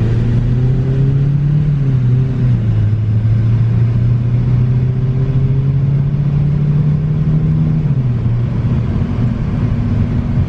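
A 2014 Ford Focus's 2.0-litre four-cylinder engine pulling the car along the road, with road noise. The engine note climbs, drops about two seconds in, climbs slowly again, then drops about eight seconds in.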